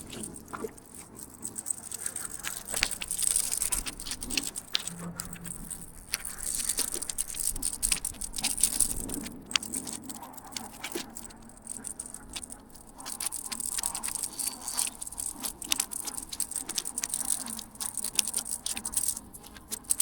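Fishing reel being cranked while a hooked fish is fought in: irregular rattling and clicking from the reel's handle and gears.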